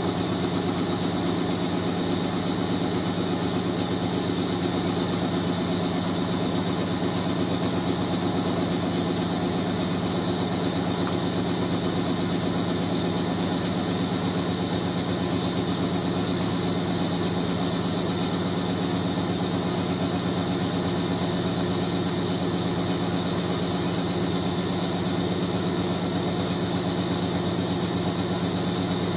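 Hoover A3060 Electronic 1100 washing machine spinning at a steady speed: a constant motor hum with a thin high whine above it.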